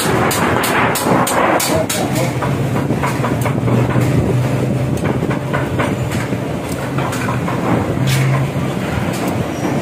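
Hammer blows on hot iron on an anvil while a sickle blade is forged: a quick run of metallic strikes, several a second at first and more scattered later. A steady low hum runs under them through the middle.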